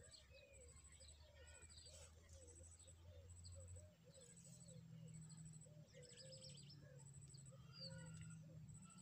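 Faint outdoor ambience of birds chirping and calling, with a run of soft low notes repeating several times a second and a high ticking pulse about every half second.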